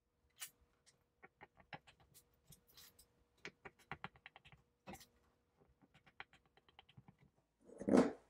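Kitchen knife cutting slices of a set chocolate cream-cheese pie in a metal pie pan: a run of quick, irregular clicks and taps as the blade strikes and scrapes the pan. A louder short thump comes near the end.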